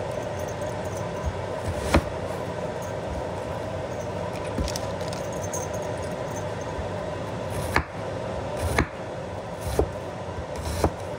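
Chef's knife cutting through a red onion onto a wooden cutting board: one sharp knock about two seconds in, then a run of knocks about once a second near the end. A steady hum sits underneath throughout.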